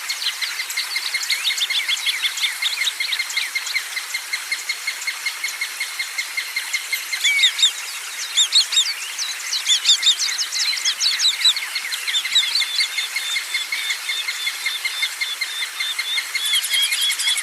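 A chorus of several songbirds calling over and over in steady strings of short, high chirps. About seven seconds in, a run of louder, faster calls comes in and lasts a few seconds.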